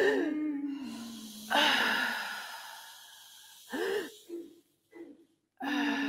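Human voices in experimental vocal performance: a steady held tone with breathy gasps and wheezes. Swooping arcs of pitch come near the start and again about four seconds in, and a loud breathy gasp sounds about a second and a half in. The voices break off briefly, then the held tone comes back near the end.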